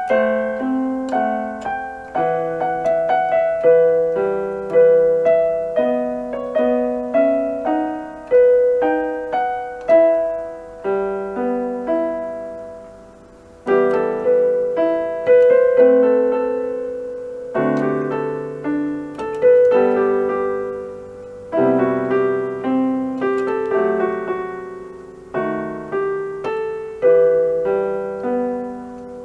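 Electronic keyboard on a piano voice, played by a beginner: a slow melody over simple chords. There is a short pause about halfway through.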